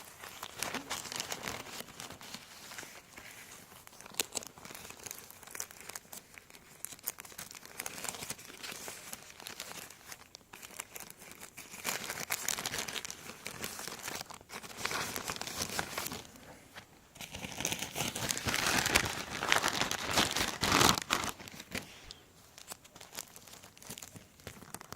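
Plastic bag crinkling and rustling as it is handled and the sticker sheets are drawn out of it, in irregular bursts that are busiest a little past the middle.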